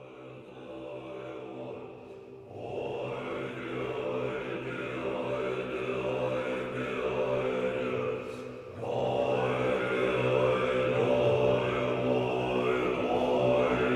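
Music track of Buddhist monks chanting in a deep, droning unison, with the chant swelling in repeated phrases; it grows louder about two and a half seconds in and again near nine seconds.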